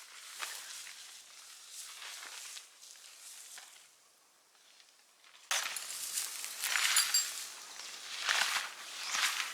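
Footsteps crunching and rustling through dry ground cover. They are faint at first and die away about four seconds in, then return suddenly louder and closer from about five and a half seconds, with a few light clinks around six to seven seconds.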